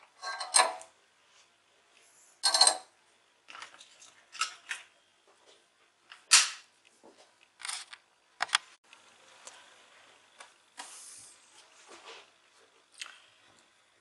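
Small plastic parts of a modular light switch being handled: about ten separate light clicks and taps, spread irregularly, some as the part is set down on and picked up from a wooden table.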